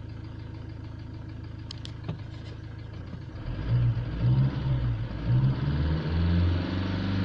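Ford Transit diesel engine idling, then from about three and a half seconds in revved in several uneven blips that stay low. The engine is refusing to gain revs, with the gear-symbol powertrain warning lit.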